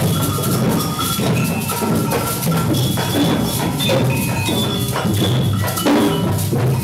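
A group of young children playing samba percussion together: drums, tambourines, sticks and small hand percussion in a dense, continuous rhythm over a large metal-shelled drum, with short bell-like tones ringing above the drumming.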